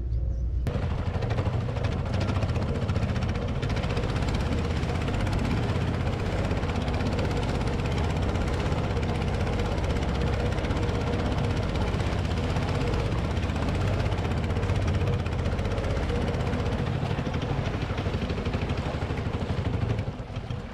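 Small engine of an outrigger fishing canoe running steadily while the boat is under way, with water rushing past the hull; it cuts off near the end.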